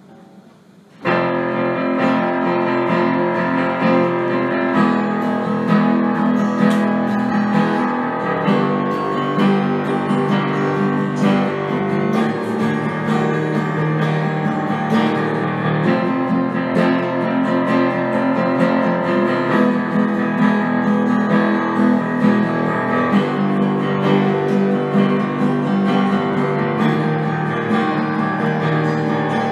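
Instrumental break with a strummed guitar, coming in suddenly and loud about a second in after a quiet, fading moment.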